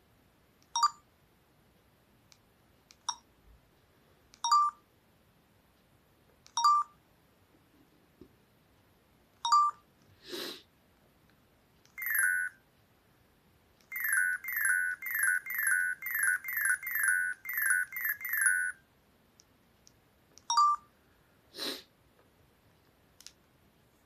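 Newgen C800 mobile phone sounding short electronic keypad beeps as its buttons are pressed. In the middle comes a bell-type ringtone preview: a rapid run of falling electronic chimes, about three a second, for about five seconds. Two brief swishes can also be heard, one just after the middle and one near the end.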